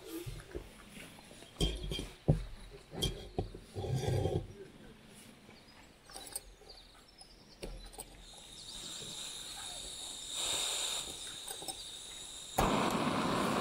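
Clicks and knocks of a backpacking gas-canister stove being screwed onto its canister and a pot set on top. From about eight seconds a faint gas hiss builds. Near the end a sharp click is followed by the burner lighting with a sudden, steady rush.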